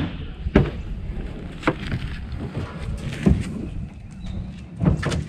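Wind buffeting the microphone in a steady low rumble, broken by a few dull thumps about a second apart.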